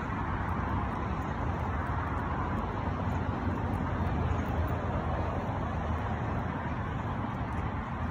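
Steady hum of road traffic, an even wash of car noise with a low rumble.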